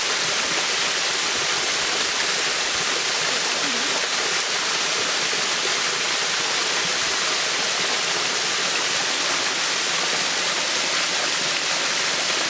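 Small waterfall pouring over a rock ledge into a shallow pool: a steady rush of falling and splashing water.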